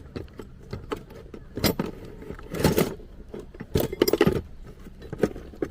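Scattered metallic clinks and knocks, with louder rattling clusters about three and four seconds in, from metal tools or parts being handled during car repair work.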